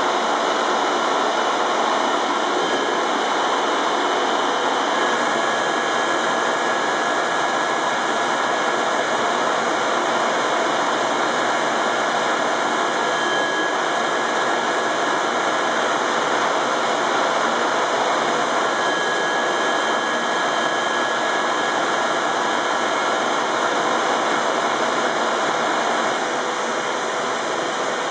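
An 1878 Goddard & Massey compound rotative beam engine being turned over without steam, by the machinery that drives it. It makes a loud, steady whirring hiss that does not vary.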